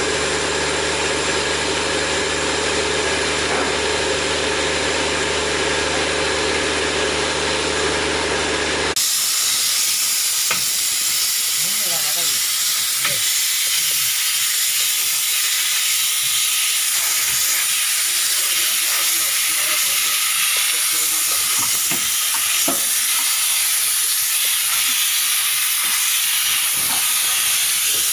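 A steady engine hum with low droning tones. After a cut about nine seconds in comes the continuous high hiss of a pressure sprayer misting disinfectant, with faint voices underneath.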